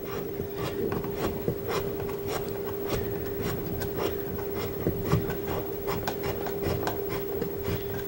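Water inlet hose coupling being screwed by hand onto the threaded inlet fitting of a portable dishwasher: the threads scrape and tick irregularly as it turns. A steady hum runs underneath.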